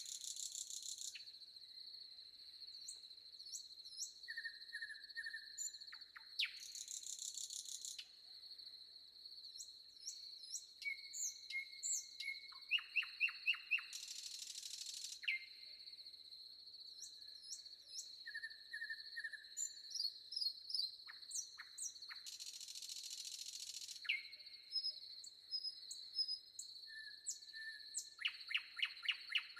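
Forest birds chirping and calling in short phrases and trills over a steady high insect drone, with a dense buzzing burst of about a second and a half recurring every seven or eight seconds.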